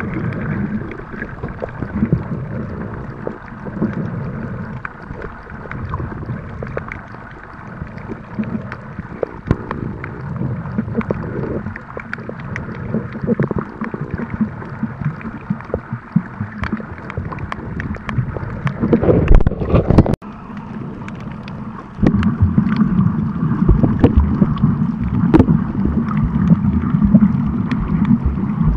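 Water moving and bubbling around a camera held underwater, heard muffled, with scattered clicks and crackles throughout. About two-thirds of the way in there is a louder rush that cuts off into a brief lull, then the water noise comes back louder.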